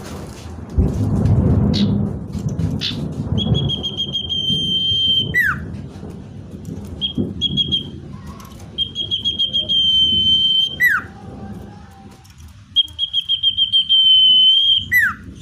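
Common iora (cipoh) singing: three long, slightly trilled whistles held on one pitch, each ending in a quick downward slur, with a few short notes between them. A low rumble sits under the first few seconds.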